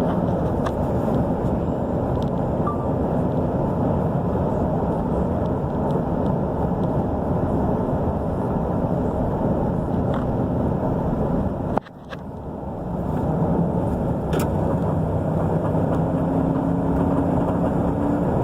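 2015 Chevrolet Silverado's 5.3-litre V8 running, the engine the owner says still misfires after a rebuilt cylinder head. About twelve seconds in the sound drops off sharply, then builds back up over a second or two.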